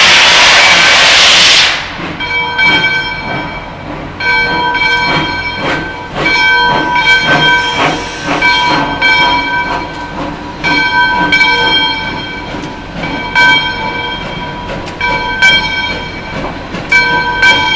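Steam locomotive No. 203 blowing off a loud hiss of steam that cuts off suddenly under two seconds in. The locomotive then moves forward with a bell ringing steadily and soft exhaust chuffs and rail noise underneath.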